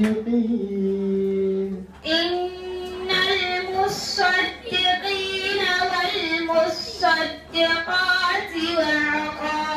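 A girl chanting a Quran recitation in Arabic in a melodic, drawn-out style, holding long notes, with a short breath about two seconds in.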